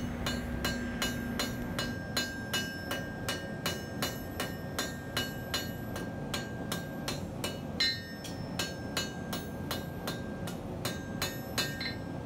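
Blacksmith's hand hammer striking a glowing steel bar on an anvil in steady, evenly spaced blows, about three a second, with a high ring carrying between them. The blows are cleaning up the edges and refining the shape of a forged taper.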